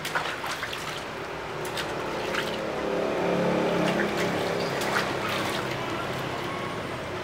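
Water splashing and dripping in a plastic basin as a small poodle is washed by hand, in many short splashes. A low rumble swells and fades around the middle.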